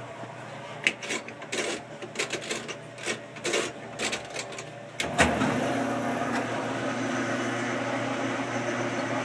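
Top-loading washing machine: a run of irregular clicks and knocks, then about five seconds in the machine starts running with a steady hum and churning noise as the load is agitated.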